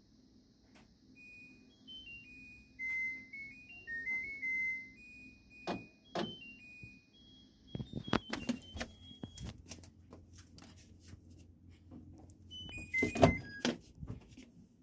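LG washing machine's electronic beeper playing its short melody: a faint run of high single notes stepping up and down. Sharp clicks and knocks follow, the loudest in a cluster near the end, with a few more beeps.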